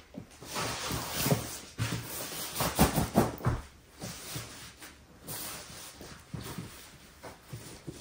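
Paper and gift packaging rustling and crinkling in irregular bursts as gifts are wrapped by hand.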